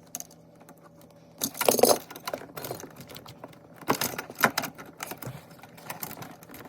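Small clicks and light rattling of hands working at a dishwasher's electrical connection, undoing the wiring, with a louder rustling scrape lasting about half a second near the two-second mark and another cluster of clicks about four seconds in.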